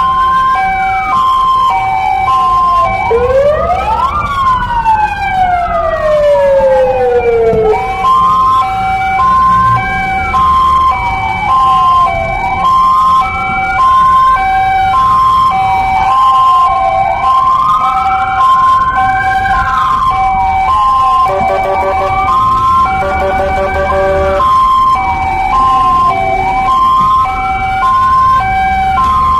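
Ambulance sirens sounding together: an electronic wail rising and falling about every two and a half seconds, over a two-tone siren alternating between a high and a low pitch. About three seconds in, a slower, deeper wail sweeps up and falls away over several seconds. Low road and engine rumble runs underneath.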